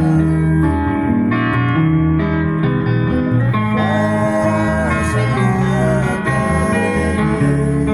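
Live band music: guitars over a steady bass line, with a singing voice coming in and out.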